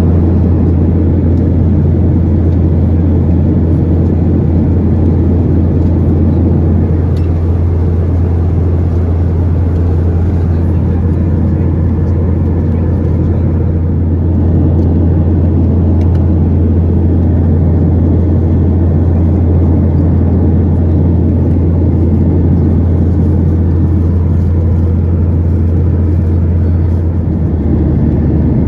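Boeing 737-800 cabin noise in flight: a steady, loud low drone of the engines and airflow over the fuselage, heard from a window seat.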